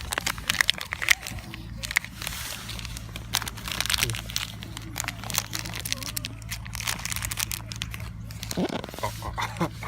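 A stray cat eating cat food, with quick irregular chewing clicks, crunching and wet smacking.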